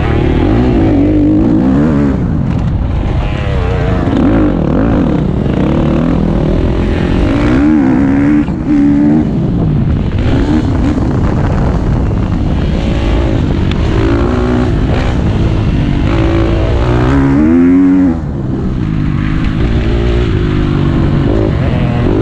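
KTM 250 SX-F's single-cylinder four-stroke engine ridden hard, its pitch climbing again and again and dropping back as it is run up through the revs and the throttle rolled off. The level falls back noticeably about eighteen seconds in.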